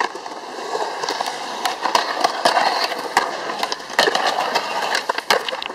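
Skateboard wheels rolling on concrete and the trucks grinding along a concrete ledge: a steady rough rolling and scraping sound broken by many sharp clacks, with a quick run of clacks near the end.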